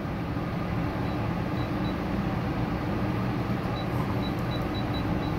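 Steady machine hum and hiss with no breaks, with faint short high-pitched beeps now and then, coming closer together in the second half.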